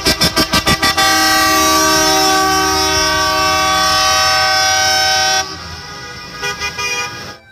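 Loud horn sound effect. A rapid run of about eight short toots in the first second leads into one long held horn chord lasting about four seconds, which cuts off suddenly and is followed by quieter tooting.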